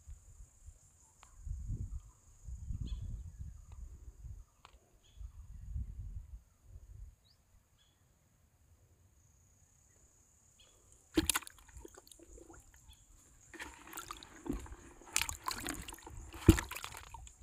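A fish splashing and thrashing in a plastic bucket of water, loudest in the last few seconds, after a sharp knock about eleven seconds in. Low muffled thumps come in the first several seconds, and a steady high insect trill runs underneath.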